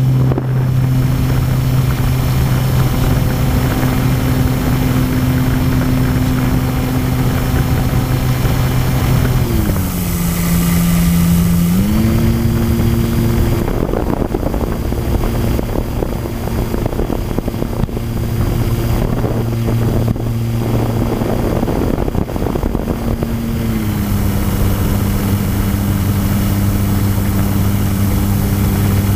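Electric motor and propeller of an E-flite Apprentice RC trainer plane in flight, heard close up from its onboard camera: a steady drone that drops in pitch about ten seconds in as the throttle is eased back, climbs again two seconds later, and settles a little lower near the end.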